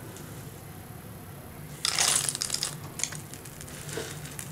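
Dry shelled pumpkin and watermelon seeds poured into a pan of thick jaggery syrup: a brief rattling pour about two seconds in, trailing off in a few smaller crackles.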